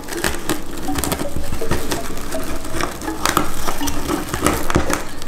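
Plastic deco mesh ribbon rustling and crinkling as hands scrunch it together in the middle and pinch it, a run of many small crackling clicks.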